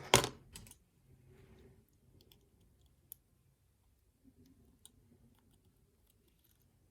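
Sharp metal clicks and taps from handling a disassembled lock's small pins and parts, with a quick cluster of louder clicks at the start and then scattered faint ticks.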